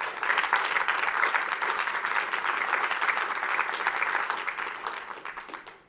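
Audience applauding, dense clapping that fades away near the end.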